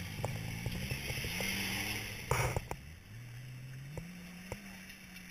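Off-road 4x4's engine revving under load on a steep dirt climb, rising in pitch, with scattered clicks. A loud bang comes about two seconds in. The engine then drops and settles at steadier, lower revs.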